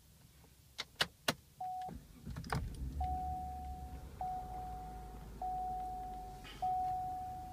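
A few clicks, then the Cadillac CTS's engine starts and runs at a steady low idle. A single-tone warning chime sounds over it, repeating about once a second.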